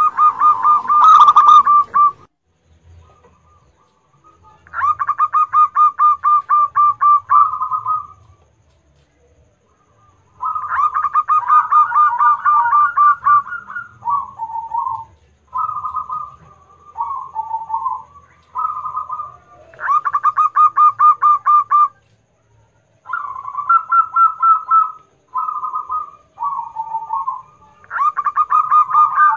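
Zebra dove (perkutut) singing: a string of phrases of rapid staccato coos near one pitch, some phrases ending on lower notes, each lasting two to three seconds with short pauses between. The first phrase, right at the start, is the loudest. A prolific singer, the kind kept as a prompt to set other doves cooing.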